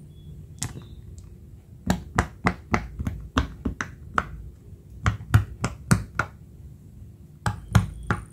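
Silicone pop-it fidget toy bubbles being pushed in by fingertip, giving quick runs of sharp little pops, several in a row each time, in three bursts.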